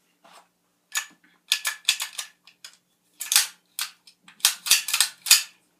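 Sharp metallic clicks and clacks of a Citadel 1911-style .22 pistol's magazine being released, pulled out and pushed back into the grip, the tight-fitting magazine knocking against the frame. There is a quick cluster of clacks about a second in and a louder run from about three to five seconds in.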